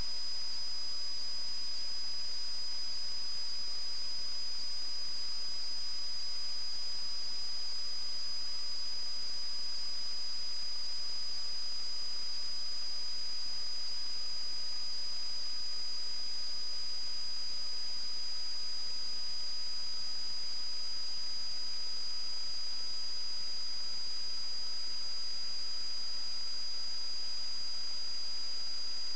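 Steady high-pitched electronic whine over an even hiss, with a fainter lower tone slowly rising in pitch: electrical interference on the sewer-camera recorder's audio while the camera sends no picture.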